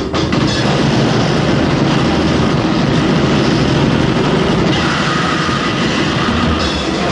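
Lo-fi grindcore noise from a rehearsal tape: a loud, continuous wall of distorted guitar, blasting drums and growled vocals blurred into a single roar.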